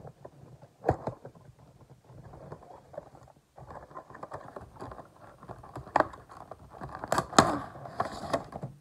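Cardboard Funko Pop box being opened by hand: cardboard and plastic packaging rattling, tapping and scraping, with a sharp knock about a second in and the loudest clatter of handling around six to seven and a half seconds.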